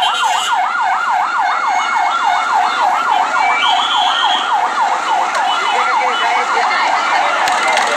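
Emergency vehicle siren in fast yelp mode, its pitch sweeping up and down about four to five times a second. It dies away near the end.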